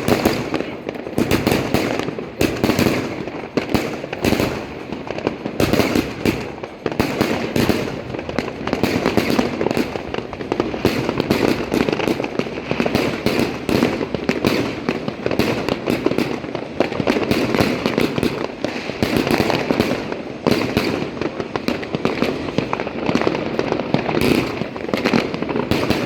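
A long China Red "Bulldozer" firecracker string going off, a dense, continuous crackle of rapid sharp bangs with no pause.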